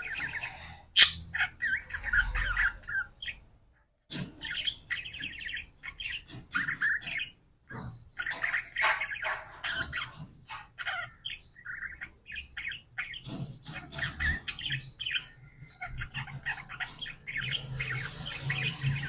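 Pet parakeets chattering, with rapid warbled chirps and squawks, and one sharp, loud click about a second in. The chatter stops briefly just before four seconds in.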